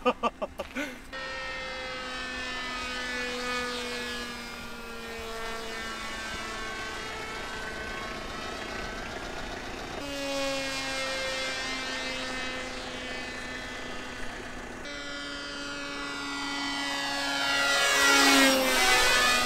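X-UAV Talon RC plane's brushless electric motor (Sunnysky 3525 880kv) and 12x6 propeller droning steadily in flight, the sound shifting as the plane moves about, and rising to its loudest in a low pass near the end. A few sharp pulses come in the first second, and the drone jumps at two edits.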